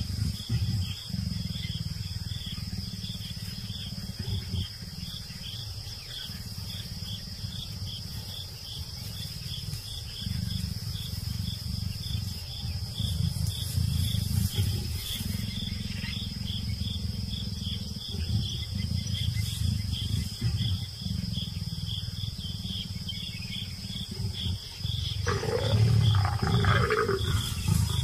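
A mating leopard pair growling low and steadily, with a louder snarl near the end. Crickets chirp steadily behind.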